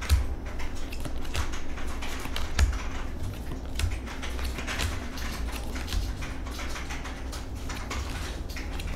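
Fortune-telling cards being handled and laid down on a tablecloth: a run of light, irregular clicks and taps.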